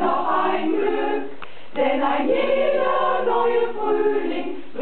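Women's choir singing a German song in held, sustained notes, with a short break for breath about a second and a half in.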